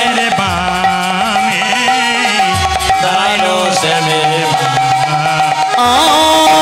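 Bengali kirtan band playing an instrumental passage: a wavering melody over a steady held drone note. Hand-drum strokes punctuate it, with a deep bass pitch that slides downward.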